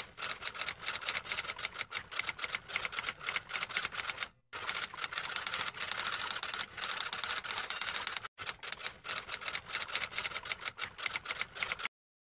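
Typing sound effect: a fast, uneven run of key clicks like a typewriter's, breaking off briefly about four seconds in and again about eight seconds in, and stopping near the end.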